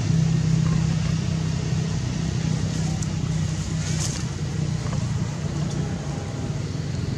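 Steady low engine-like hum, with a few faint, brief high clicks about three and four seconds in.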